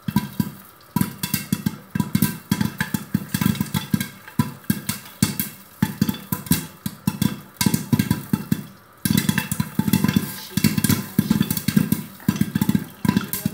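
Popcorn kernels popping fast in hot oil inside a pot covered with a glass lid, a dense run of sharp pops with a short lull about nine seconds in.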